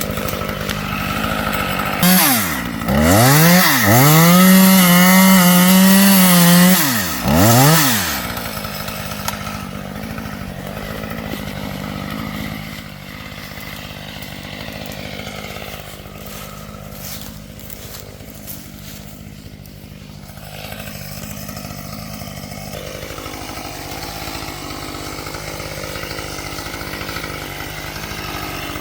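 Husqvarna T540XP two-stroke top-handle chainsaw running, revved up to full throttle about two seconds in and held for a few seconds, dropped back, blipped once more, then left running at a low steady speed.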